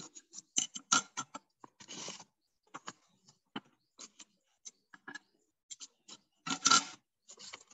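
Stiff chart paper being handled: a string of irregular light clicks and taps, with two short rustles, about two seconds in and again near the end, as the cut-out sheet is lifted away.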